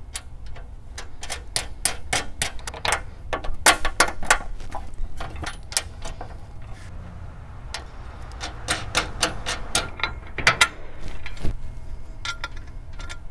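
Irregular small metal clicks and taps as bolts, washers and hand-tightened nuts are fitted to a perforated metal cargo-enclosure sidewall panel, the hardware knocking against the panel, with a few quick runs of clicks.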